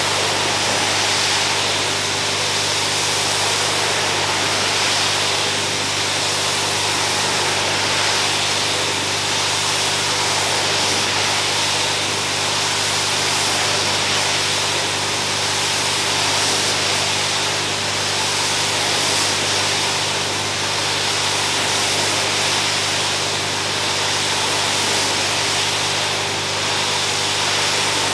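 Pressure washer jetting water onto a rug: a steady hiss of the spray over a steady low hum from the machine.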